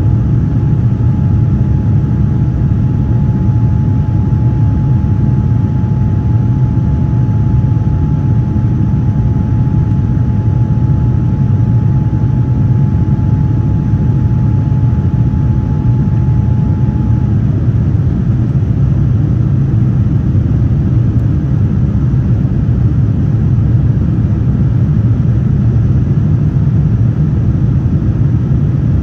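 Steady in-flight cabin noise of a Boeing 787-9 heard from a window seat: a loud, even, deep rumble of its GEnx engines and airflow. A faint high steady tone runs over it and stops a little past halfway.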